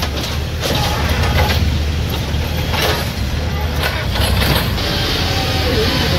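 CASE backhoe's diesel engine running steadily, with several irregular knocks and crashes of concrete and rubble as the hydraulic breaker demolishes a masonry wall.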